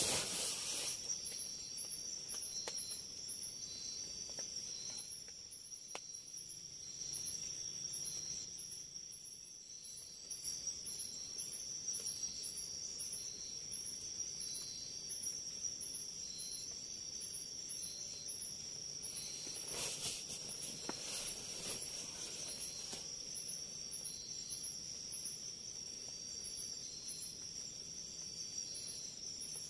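Night insects, crickets or katydids, calling in the forest: a steady high-pitched drone with a short high chirp repeating at an even pace over it. A few faint soft rustles come about two-thirds of the way through.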